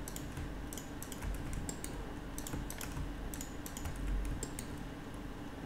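Scattered, irregular clicks of a computer keyboard and mouse over a faint steady hum.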